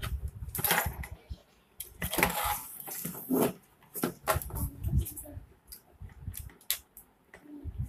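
Irregular scrapes, clicks and light knocks of a printed circuit board being handled and turned over as a new electrolytic capacitor is fitted into it.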